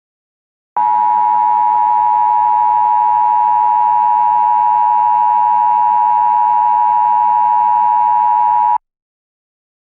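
Emergency Alert System attention signal: a loud, steady two-tone alarm that starts about a second in, holds for about eight seconds and cuts off abruptly. It is the alert tone that announces an emergency message.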